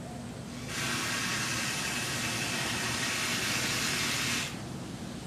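A steady hiss lasting nearly four seconds, starting and stopping abruptly.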